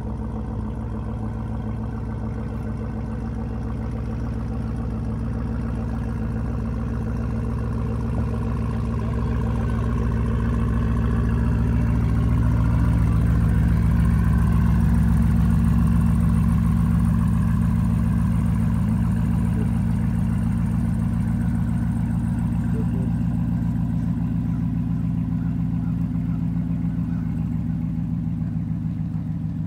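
Sixth-generation Chevrolet Camaro SS's V8 running at low, steady revs as the car creeps slowly past at walking pace, with no revving. It grows louder until about halfway through as the car nears, then eases off a little.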